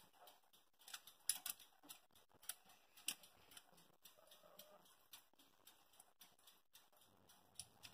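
Near silence broken by faint, scattered light clicks and ticks, with two sharper clicks about one second and three seconds in.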